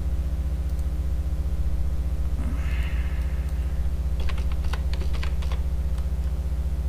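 Keystrokes on a computer keyboard: a quick run of typing about four seconds in and a few more keys near the end, over a steady low hum.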